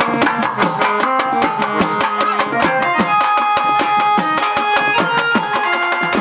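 Chekka bhajana music: wooden hand clappers (chekkalu) struck in a quick, even rhythm over a hand drum whose low strokes bend in pitch, with held melodic notes above.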